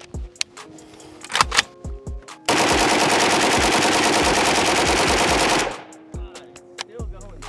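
Pioneer Arms 5.56 Sporter AK rifle firing one long fully automatic burst of about three seconds, emptying a 30-round magazine.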